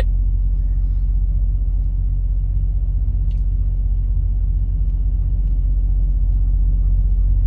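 Steady low rumble of an idling truck engine heard from inside the cab, with a faint tick about three seconds in.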